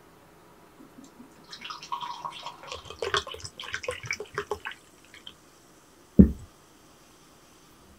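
A fizzy drink glugging and splashing from a glass bottle into a drinking glass for about three seconds. A single sharp thud follows about six seconds in as the bottle is set down on the table.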